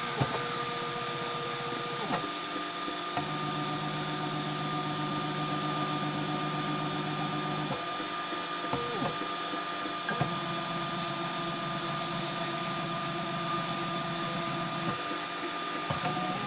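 Homemade 3D printer running a print: its stepper motors whine in steady tones that hold for several seconds and then switch to a new pitch as each move changes, with a sharp tick at several of the changes. A constant high tone runs underneath.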